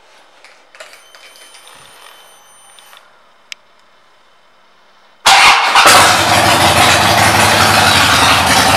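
2006 Harley-Davidson Dyna Street Bob's Twin Cam 88 V-twin with Vance & Hines pipes being started. A faint steady whine and a click come after the ignition is switched on, then about five seconds in the engine cranks, fires at once and settles into a loud, steady idle.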